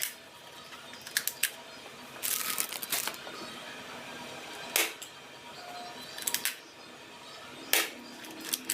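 A series of sharp clicks and snaps, some single and some in quick clusters, spread irregularly over a few seconds, with a faint background underneath.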